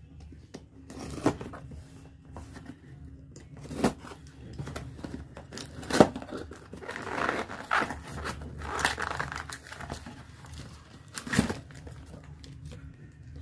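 Cardboard shipping package being torn open by hand: tearing and crinkling of cardboard and tape, with a few sharp knocks as the package is handled.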